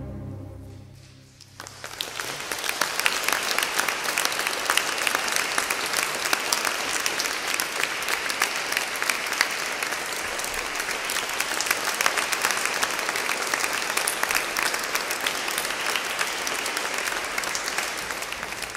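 A string orchestra's final chord fades away. About a second and a half in, the audience breaks into applause that goes on steadily.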